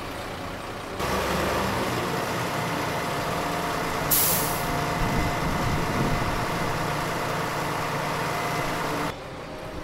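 Diesel engine of a mobile crane running steadily under load as it hoists a heavy tank. About four seconds in, a short sharp hiss of released air cuts through.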